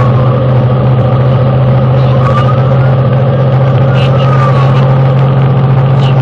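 Fire engine running steadily at highway speed, heard from inside the cab as a constant low drone. A siren wails faintly over it, rising and falling.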